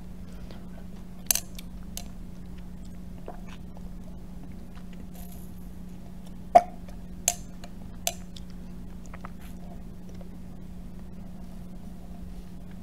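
Smoothie being stirred and sipped through a metal straw in a glass, with a few sharp clicks of the straw, the loudest about six and a half seconds in. A steady low hum runs underneath.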